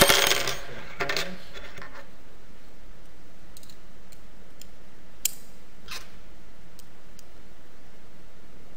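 Small metal tools clinking against the fuel cell's metal bolts and fittings while its screws are tightened with an Allen key. A brief clatter of clicks opens, then single light clicks come now and then, the sharpest about five seconds in.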